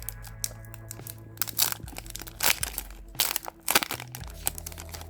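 Foil Yu-Gi-Oh booster pack wrapper crinkling and being torn open, with irregular crackles and rustles of the wrapper and cards being handled. Background music plays underneath.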